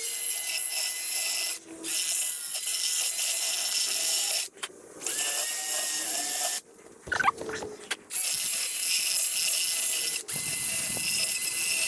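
Handheld power grinder running in bursts of a few seconds each with a steady high whine, cutting a groove along a crack in an aluminum wheel rim to open the crack up for repair. It stops briefly about four times between bursts.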